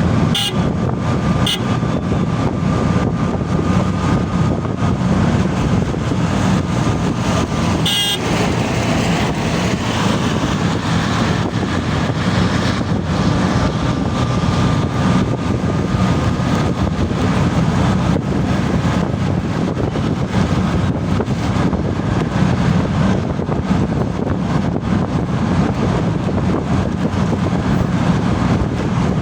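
Motor vehicle running with a steady low rumble amid road traffic noise, with a few sharp clicks and a faint steady whine.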